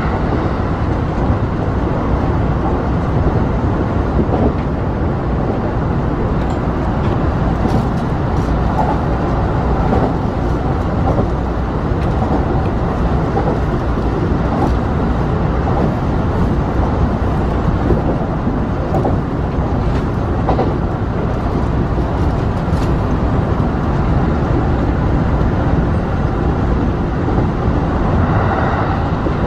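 Kintetsu Kyoto Line express train running at speed, heard from behind the driver's cab: a steady low rumble of wheels on rail and running gear, with a few faint clicks.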